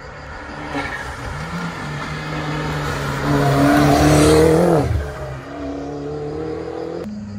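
Peugeot 207 rally car's engine approaching and accelerating hard, its revs climbing as it passes close. About five seconds in the revs drop sharply, and the engine runs on more faintly as the car pulls away.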